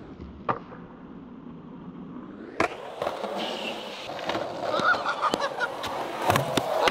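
Skateboard wheels rolling on concrete, the rumble growing louder over the second half, with sharp board clacks about half a second in, between two and three seconds in, and several more near the end.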